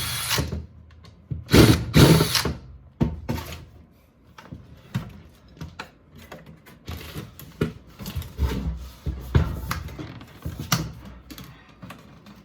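Porter-Cable 20-volt brushless cordless drill running in short bursts to back screws out of a plastic appliance housing, with clicks and rattles of the panel and parts being handled between runs. The loudest bursts come at the start and about two seconds in.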